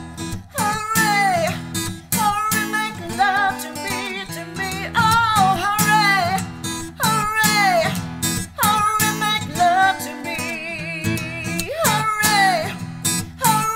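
A woman's voice singing long, wavering notes over an acoustic guitar, in a voice-and-guitar acoustic song.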